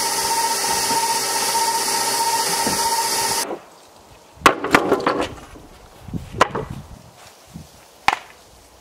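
An immersion blender's motor runs steadily with a hiss and a wavering whine, then cuts off abruptly a little over three seconds in. Wooden boards then knock and clatter in a few sharp hits as they are handled on sawhorses.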